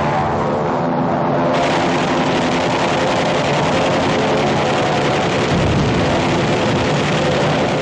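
Steady drone of piston aircraft engines: a dense hum of many even tones over a rushing noise, with no gunfire in it.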